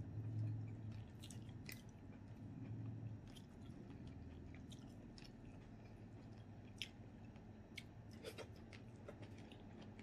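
A person chewing a mouthful of food, with soft wet mouth clicks and smacks scattered throughout.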